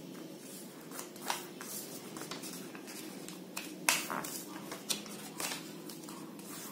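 Square sheet of origami paper being folded by hand, corners brought in to the centre and creased: several crisp rustles and crackles of the paper, the sharpest a little under four seconds in. A steady low hum runs underneath.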